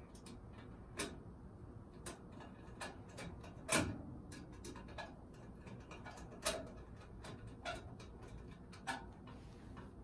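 Scattered sharp clicks and taps from hand work on a car's headlight mount, irregularly spaced, the loudest about four seconds in.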